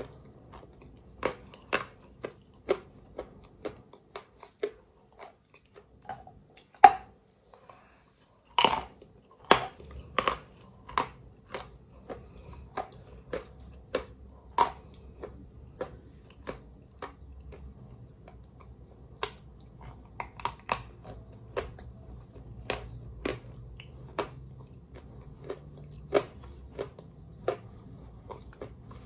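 Close-miked biting and chewing of a paste-coated stick of chalk: sharp crunches, about one to two a second, with one much louder crunch about seven seconds in.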